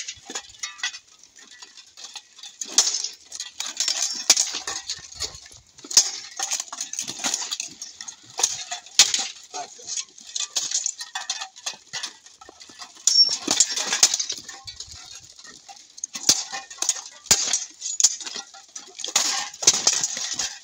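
Steel plate armour clanking and rattling as two armoured fighters move and grapple, with irregular sharp metallic strikes of swords on plate.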